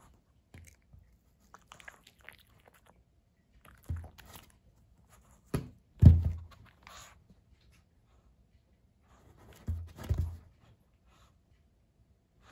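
A few short dull knocks and scuffs of a small dog's paws on a wooden tabletop as it waves and sets them down. The loudest is about six seconds in, and a pair comes near ten seconds.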